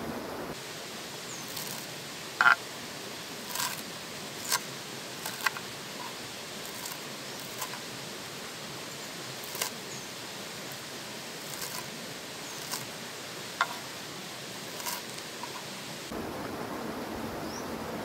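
Knife chopping fresh parsley on a wooden cutting board: short sharp knocks at an irregular pace, roughly one a second, over a steady hiss of outdoor background noise.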